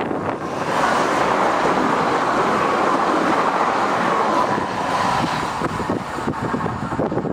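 Class 222 Meridian diesel multiple unit passing at speed close by: a loud rush of wheel, rail and engine noise that swells about a second in and eases off after about five seconds. Wind buffets the microphone.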